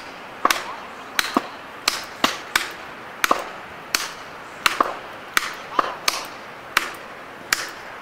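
Repeated hard blows driving yellow plastic felling wedges into the back cut of a large tree trunk, about two strikes a second, each a sharp knock. The wedges are being hammered in to lift and tip the tree.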